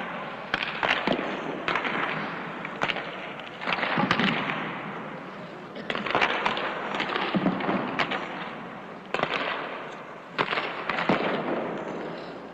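Hockey shooting drill: sharp cracks of sticks striking pucks, coming irregularly about once a second, each with a long echo trailing off through the ice arena.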